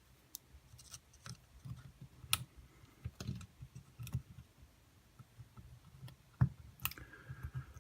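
Irregular small clicks and taps from hands working the brushes and brush springs of a small brushed RC car motor during reassembly, one sharper click about two-thirds of the way in.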